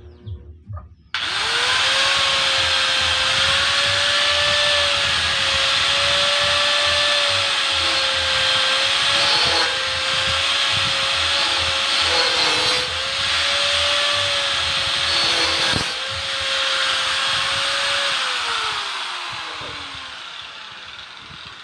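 Angle grinder starting up about a second in and cutting through rectangular tube: a steady motor whine under a hiss of the disc on the metal, dipping briefly a few times as the disc bites. Near the end it is switched off and winds down with a falling whine.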